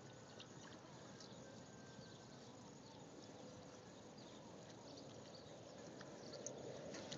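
Near silence: faint outdoor ambience with a few faint, short, high ticks and chirps.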